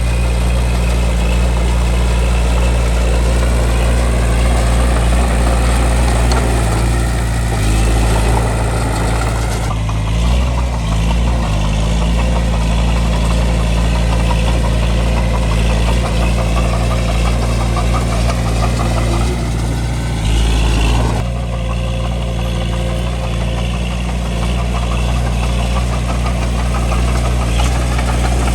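Bulldozer's diesel engine running steadily and loud, with a busy mechanical clatter above the engine's low note. The sound shifts abruptly about ten seconds in and again about twenty-one seconds in.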